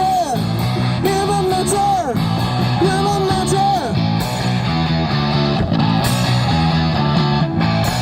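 Live punk rock band playing loudly, with electric guitar chords. In the first half, long held notes slide downward at their ends. After that the band plays on with repeated chords.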